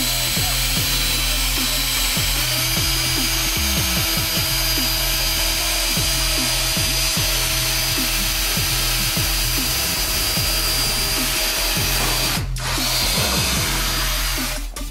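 Ridgid 18V cordless drill running steadily as it bores into a car's rear diffuser. Its whine steps up in pitch about two seconds in, and it cuts out briefly near the end.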